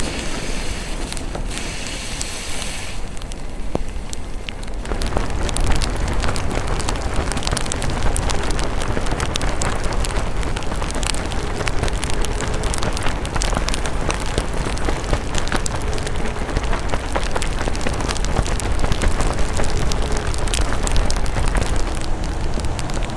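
Riding an electric unicycle in the rain: wind rumbling on the microphone under a dense crackle and hiss of rain and wet pavement, getting louder about five seconds in.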